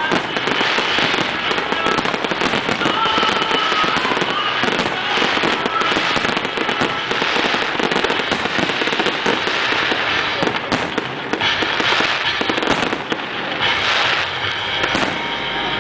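Aerial fireworks display going off in rapid succession: a dense, unbroken run of shell bursts, bangs and crackling.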